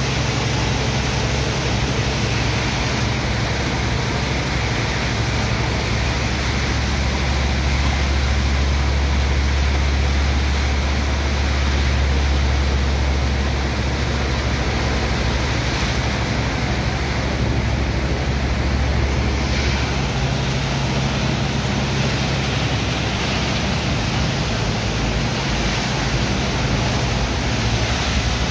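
High-pressure water jets from hoses blasting into the wet sand cargo, a steady rushing hiss and splash as the sand is washed into slurry for pumping out. A steady low machine drone runs underneath.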